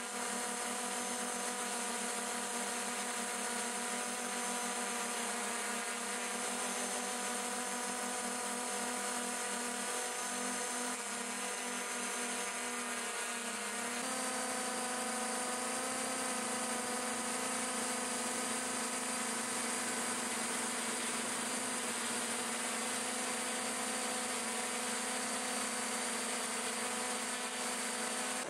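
Electric motors and propellers of a multirotor camera drone whirring steadily in flight, a whine of several held pitches that shifts to a new set of pitches about halfway through.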